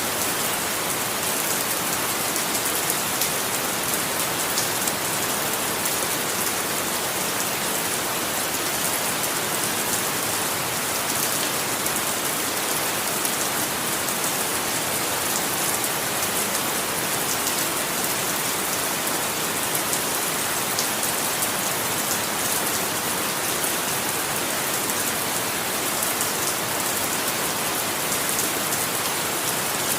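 Steady rain falling: an even hiss of rain with many small drop ticks scattered through it.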